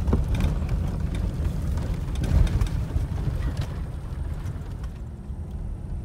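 Vehicle driving: a steady low rumble with scattered knocks and rattles, easing slightly toward the end.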